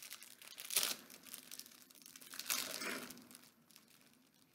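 Individually wrapped cookie packet crinkling and tearing as it is opened by hand, in two bursts: a sharp one about a second in and a longer one about halfway through.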